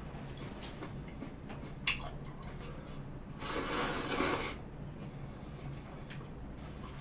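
A person slurping up jjamppong noodles, one loud slurp of about a second just past the middle. Before it there are a few light clicks of wooden chopsticks.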